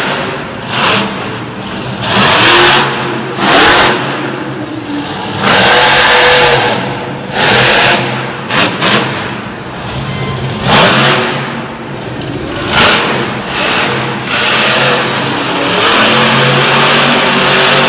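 Bigfoot monster truck's engine revving hard in repeated short bursts as the truck climbs and wheelies over a pile of crushed cars, then held more steadily near the end as it drives off.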